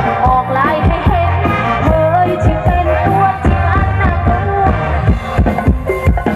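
A live mor lam band plays upbeat music through a large PA system, with a sung melody over a heavy bass line and a steady drum beat. Near the end the singing drops back and the drums come to the front.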